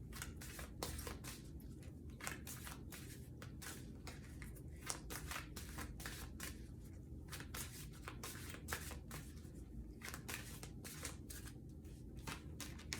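A deck of tarot cards being shuffled by hand: a long run of quick, irregular clicks and riffles of the cards.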